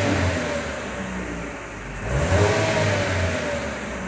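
Vauxhall Mokka X 1.4-litre turbo petrol four-cylinder revved from idle, heard at the exhaust tailpipe. The revs fall back from one blip, rise again about two seconds in, and drop away near the end.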